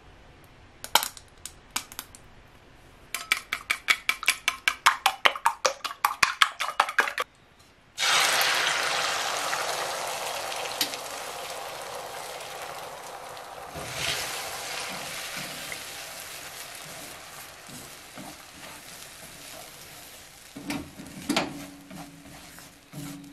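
Eggs being beaten in a stainless steel bowl, a quick run of clicks about six a second, then the egg poured into a hot wok, where it sizzles loudly at once and the sizzle slowly dies down. Near the end chopsticks knock and scrape in the wok as the eggs are stirred.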